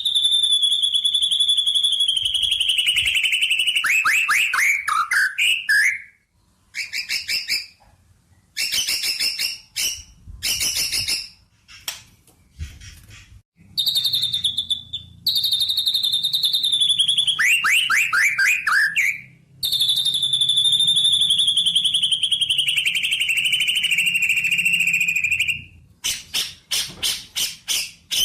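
A songbird singing loud, high-pitched phrases: long rapid trills that slide slowly downward in pitch, ending in quick falling notes, broken by short pauses and bursts of chirps, with the phrase repeated twice.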